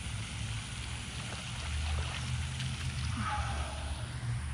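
Wind rumbling and buffeting on the microphone, with a few faint clicks and a brief higher sound about three seconds in.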